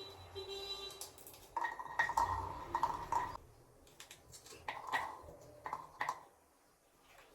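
Dishes and utensils clinking and scraping in a few short bouts, loudest about two seconds in, with small knocks between.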